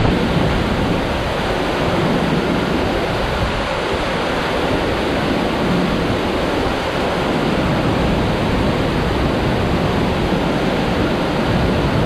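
Waterfall making a steady, even roar of falling water, with some low wind rumble on the microphone.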